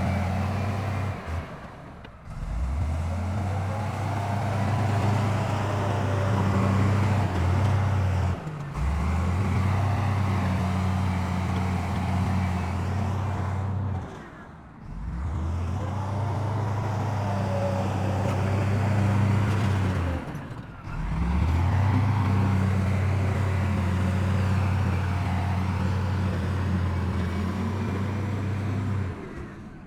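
Heavy diesel engines of earthmoving machines, a bulldozer and dump trucks, running with a steady low hum. The sound dips out briefly about every six seconds.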